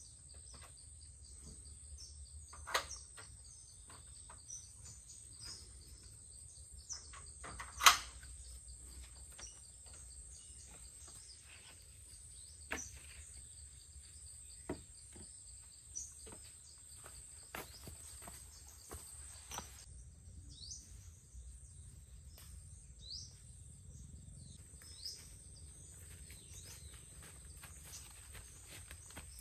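A steady high drone of insects with birds chirping now and then, more often in the second half. A few sharp knocks and clatters sound over it, the loudest about eight seconds in.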